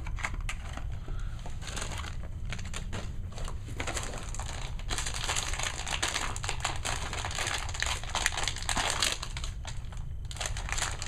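Plastic packaging being handled and opened, crinkling in a steady run of small crackles that grows denser about five seconds in.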